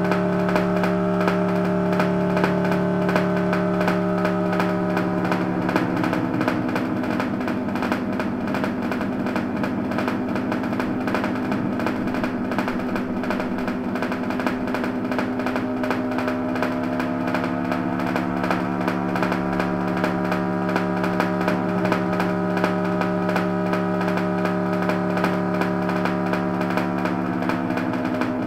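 Distorted electronic drone of several held tones under a constant crackle, its pitches shifting about six seconds in and again around seventeen seconds.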